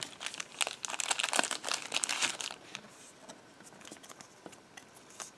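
O-Pee-Chee Platinum hockey card pack's foil wrapper crinkling and tearing open for about two seconds, followed by a few light clicks of cards being handled.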